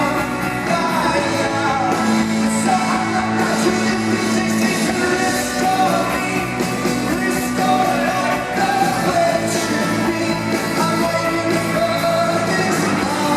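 Rock band playing live, with a lead singer's voice over a full band and cymbal and drum hits, in an arena.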